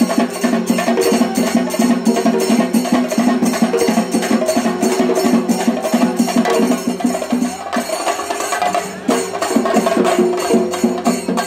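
Traditional drum-led music: dense, rapid drum strokes with held tones sounding over them. The drumming thins out briefly about eight seconds in, then picks up again.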